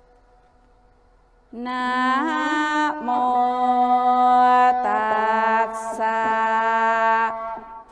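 A mantra sung in long held notes, each sliding up into pitch and then held for a second or more. It begins about a second and a half in, after a quiet opening.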